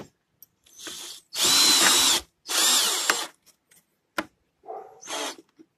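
Cordless drill driving in a screw in short bursts: a brief start, two loud runs of about a second each with a whining motor, a click, then a shorter final burst near the end.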